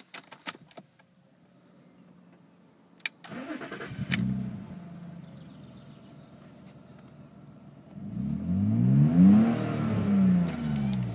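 BMW E36 328i's 2.8-litre straight-six cold-started: a few clicks, a brief crank of the starter, the engine catching with a short flare and settling to idle. It is then revved up and back down twice before dropping toward idle.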